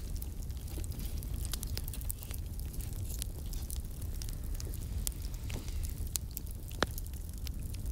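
Wood fire crackling in a small folding metal camp stove, with scattered sharp snaps and one louder pop near the end, over a steady low rumble.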